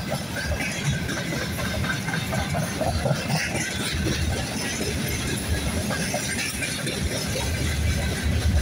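Freight train wagons rolling past on the track: a steady rumble and rattle of wheels on rails.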